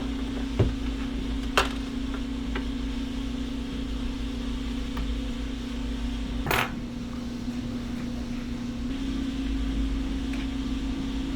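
A few sharp clicks and taps of small metal parts being handled as a bracket is unscrewed and lifted off the front of a Lenovo M720q mini PC, with a slightly longer knock about six and a half seconds in, over a steady low hum.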